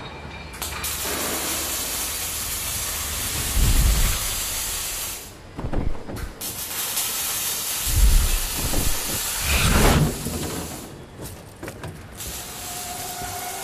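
Loud steady hissing noise, broken by a few short gaps, with four deep thuds spaced about two seconds apart.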